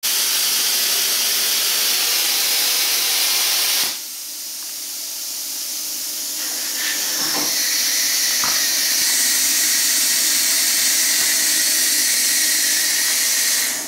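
Plasma cutter running: a loud, steady hiss of the arc and air jet. It drops abruptly about four seconds in, builds back up, and stops suddenly near the end.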